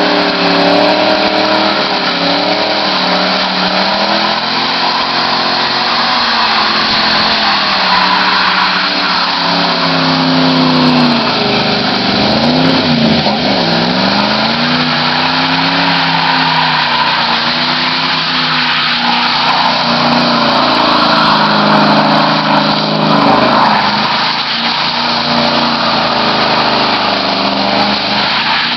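Ford Mustang V8 repeatedly revved up and down while spinning donuts, with tyres squealing and scrubbing on the asphalt.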